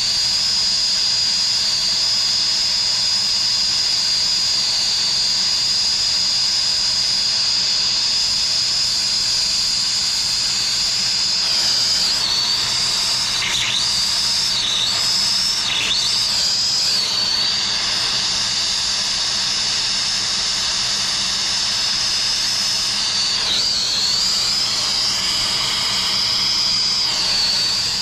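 Hand brazing torch burning steadily on a brass pipe adapter, a loud hiss with a high whistle on top. The whistle dips in pitch several times about halfway through and once more near the end.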